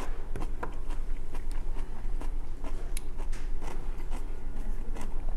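A man chewing a mouthful of stir-fried cabbage and rice, with many small scattered clicks, over a steady low hum.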